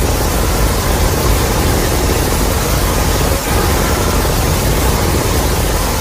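Creature sound effect for Godzilla: a loud, steady rush of noise with a heavy low rumble underneath, even from start to finish.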